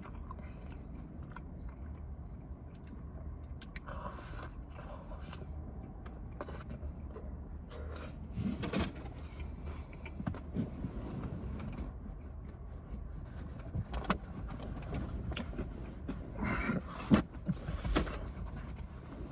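Close-miked chewing and biting of a fried chicken sandwich: wet mouth sounds with scattered crunches and clicks, busiest about halfway through and again near the end, over a steady low hum.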